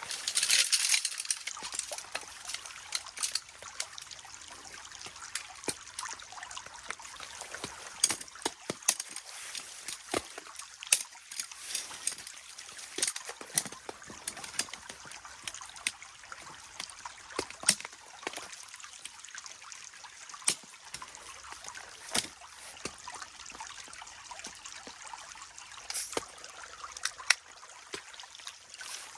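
Steady rush of a flowing stream, with scattered sharp ticks and taps throughout and a louder rush in the first second or so.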